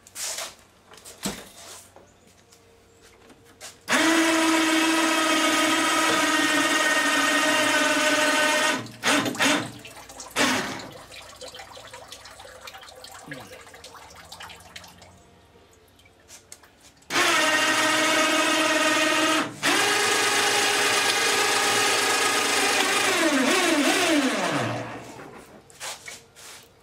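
Electric hoist motor running with a steady whine in two long spells as the outboard is lifted out of the test tank, winding down with a falling pitch near the end. A few metal clanks come between the two spells.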